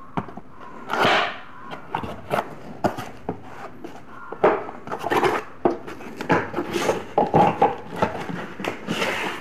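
Cardboard box being opened by hand: flaps pulled back and packing insert shifted, giving irregular rustling and scraping with sharp clicks and taps.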